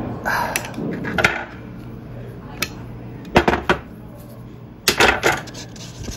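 Clinks and knocks of a steel reset-solenoid housing and its cable being handled and set down on a glass-topped bench. The sharp taps come at irregular intervals, loudest in clusters about three and a half and five seconds in.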